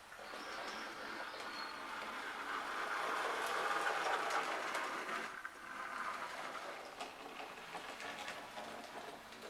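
Model train running on the layout's track, a steady whirring rattle of motor and wheels that grows louder to a peak a few seconds in and then drops off sharply.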